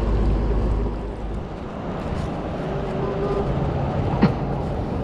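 An engine running with a steady hum, with wind rumbling on the microphone for about the first second and a half and one sharp click near the end.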